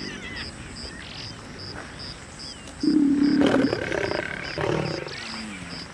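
Lioness snarling and growling, with one loud snarl about three seconds in and a shorter growl near the end.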